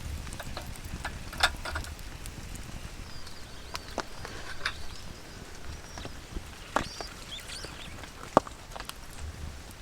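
Wood fire crackling, with a few sharp pops standing out, over a steady patter of rain.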